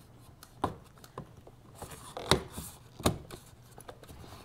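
Plastic snap clips of a Kunist mesh grille insert being pushed into a Tesla Model 3's lower front air inlet. There are a few sharp clicks a second or so apart, the loudest a little past halfway, as the clips seat in the existing plastic.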